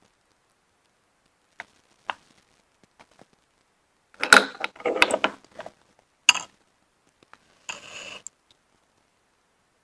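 Close-miked eating of steamed mountain snails: a few light clicks, then a loud cluster of crackly mouth and shell sounds about four seconds in, one more sharp click, and a short noisy burst near the end.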